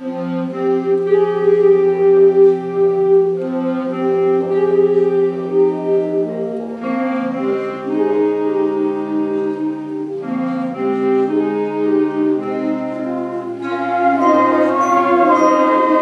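Middle school concert band of woodwinds and brass playing slow, held chords that change every few seconds, coming in full right at the start after a soft passage. About three-quarters through it swells louder and brighter as higher parts join.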